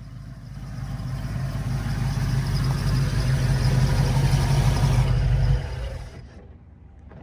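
Old Ford Bronco V8 running with a turbo whistle in its exhaust pipe, the engine note growing louder over about five seconds and then fading away, like the truck driving past. The whistle is barely heard over the engine and the lumpy cam.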